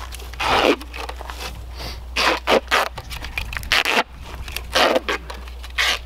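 Duct tape being pulled off the roll in a quick, uneven series of short, harsh rips as it is wrapped around a cinder block.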